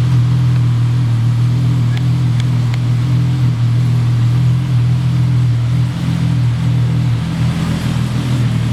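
Car engine and exhaust running at a steady speed: a loud, even low drone that holds one pitch throughout and fades out at the end.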